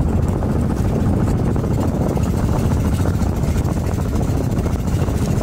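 Engine of a motorized outrigger boat (bangka) running steadily at cruising speed, a loud, even low drone.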